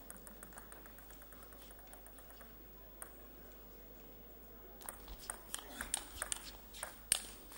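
Table tennis ball bouncing lightly and regularly in the first couple of seconds, then a serve and a fast rally: sharp clicks of the celluloid ball on the bats and the table, several a second, the loudest one near the end.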